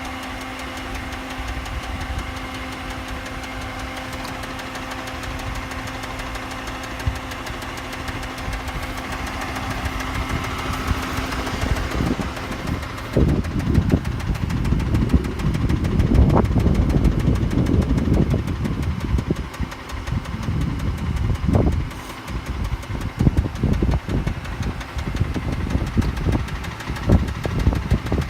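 Mitsubishi 6G72 V6 engine running with a knock, which the owner says is not the hydraulic tensioner and whose cause is unknown until the engine is torn down. From about twelve seconds in, louder uneven low rumbling with short low hits comes over the steady running.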